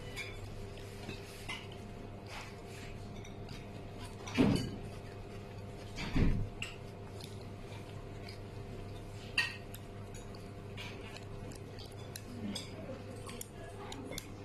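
Scattered light clinks of porcelain dishes and chopsticks at a dining table, with two louder knocks about four and six seconds in, over a steady low hum.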